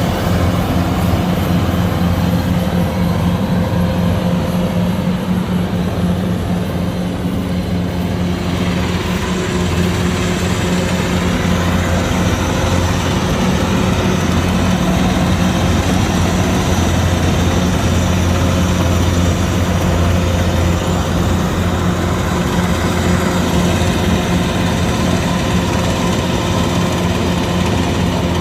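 Kubota DC-105X combine harvester's diesel engine running steadily with a low, even drone.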